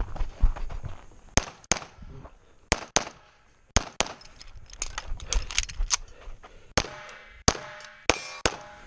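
Semi-automatic pistol firing a dozen or so shots, mostly in quick pairs. Some of the later shots are followed by a ringing tone like hit steel targets.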